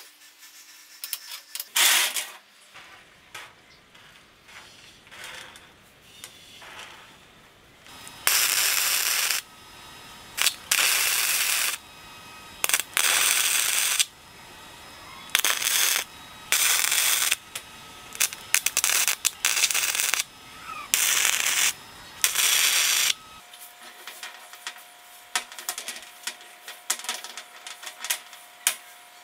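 Steel bolts clinking as they are handled, then about ten short bursts of electric arc welding, each about a second long, as the bolts are tack-welded around a bearing ring. Near the end, more clinking of the metal parts.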